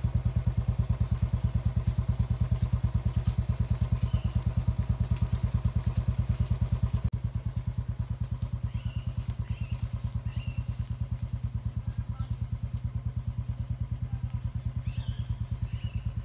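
Motorcycle engine running at a low, steady pace with an even, rapid thumping beat, and a small drop in loudness about seven seconds in. Birds chirp faintly now and then.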